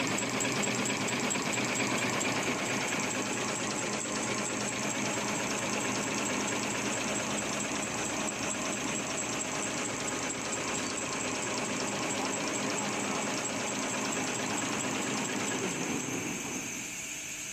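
Automatic tall-fold napkin paper folding machine running with a fast, even mechanical rhythm. Near the end it is stopped at the emergency-stop button and runs down, the machine noise falling away.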